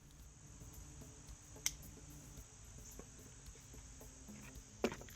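Insects chirring steadily in a high, thin band, with two faint clicks, one about a second and a half in and one near the end.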